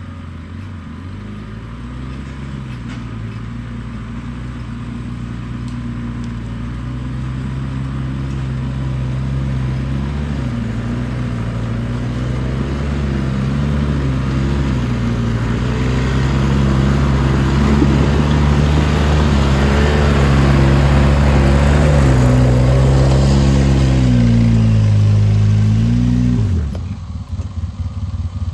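ATV engine running under load as it tows a loaded log trailer, growing louder as it approaches. The engine speed rises and falls a few times near the end, then the sound drops off suddenly.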